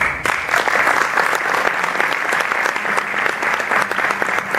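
A room of people applauding: dense, steady clapping from many hands that breaks out suddenly as a speech ends.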